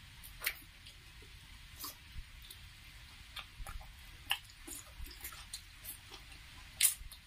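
Close-up eating sounds: chewing and wet lip smacks as mouthfuls of rice and curry are eaten by hand. They come as a string of short, irregular clicks, the loudest a little before the end.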